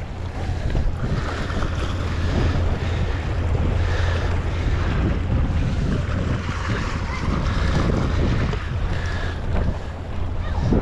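Steady wind buffeting the microphone over small waves washing against the shoreline rocks.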